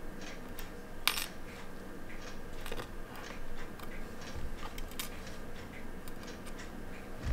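Light, scattered clicks and small metallic taps of steel tweezers handling a tiny watch movement plate, with one sharper click about a second in.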